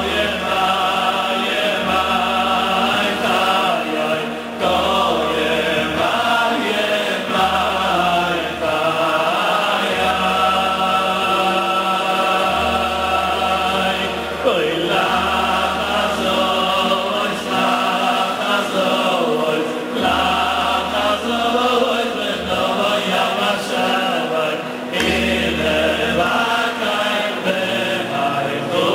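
Many men's voices singing a melody together in a chant-like unison, over low notes that change every second or two.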